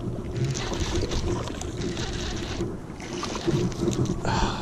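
Wind rumbling on the microphone, with scattered clicks and rustles of handling as a hooked bass is reeled in.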